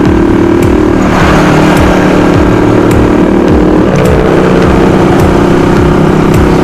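Motorcycle fitted with a bullet pipe exhaust and a silencer insert, its engine running steadily while being ridden.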